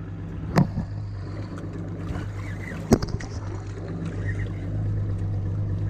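Evinrude outboard motor idling steadily, a low even hum, with two sharp knocks: one about half a second in and one about three seconds in.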